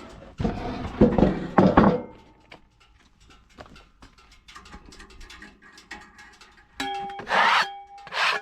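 Handling freshly sawn wood: heavy scraping and knocks for the first two seconds, then, about seven seconds in, quick repeated rough rubbing strokes over the wood surface.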